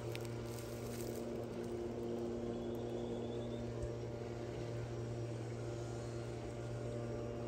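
A small engine running steadily with an even hum that does not change in pitch.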